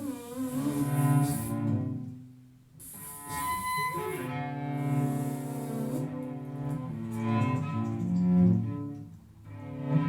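Cello bowing long, low sustained notes in improvised music, with a short break about two seconds in.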